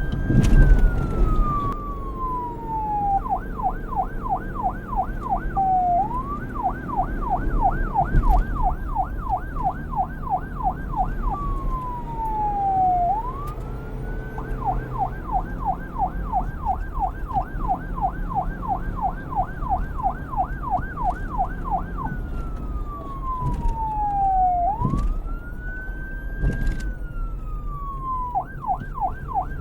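Electronic police siren switching back and forth between a slow wail, rising and falling, and a fast yelp of about four sweeps a second, over a low rumble with a couple of sharp thumps.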